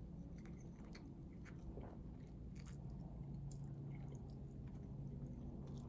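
Faint, close-miked chewing and slurping of spaghetti bolognese, with scattered small wet mouth clicks.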